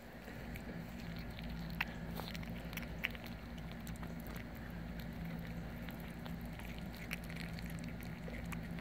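Two kittens chewing and tearing at raw turkey giblets, with scattered small wet clicks and smacks from biting. A steady low hum runs underneath.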